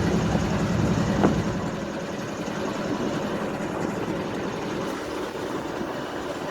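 Union Pacific diesel locomotive idling with a steady low hum, which drops in level about a second and a half in; a single short click just before that.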